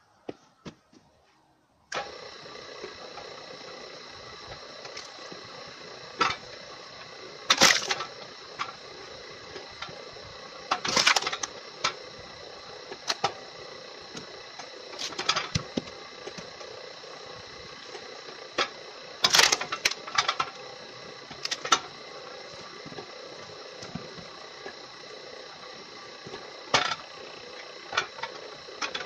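A homemade flywheel-and-crank log splitter running with a steady machine hum that starts about two seconds in. Sharp knocks and cracks come every second or few as the ram drives through rounds of firewood.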